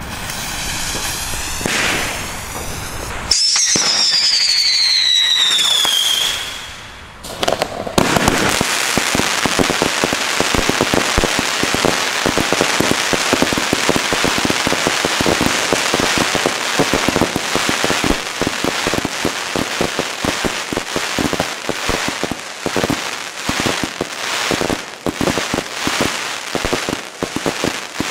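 Pyroland Schepper crackling firework battery: the lit fuse hisses for a few seconds, with a high whistling tone that falls in pitch. About eight seconds in, the battery starts firing and runs on as a dense, continuous crackle of many sharp pops.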